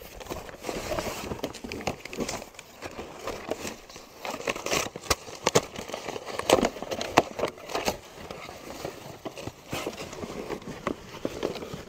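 Cardboard box being opened and packing paper rustled and crumpled by hand, with many sharp crackles and knocks, busiest about four to seven seconds in.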